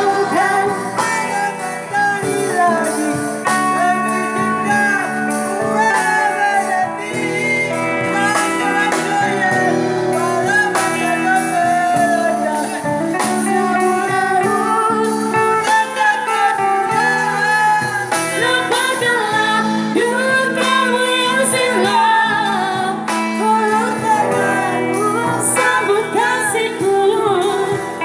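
Live amplified singing: a man and women sing a duet into handheld microphones over a guitar, played through a small street PA.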